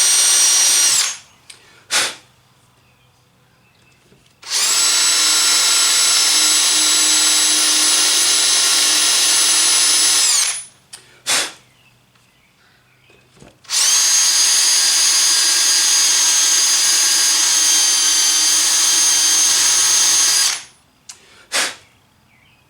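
Power drill turning a left-hand drill bit in reverse into soft brass, run in three stretches of several seconds each, with a short trigger blip between them. The motor's whine drops in pitch as it spins down at the end of each run.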